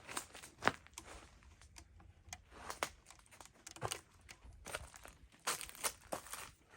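Rustling handling noise with scattered light clicks and knocks, of a camera being picked up and carried in close.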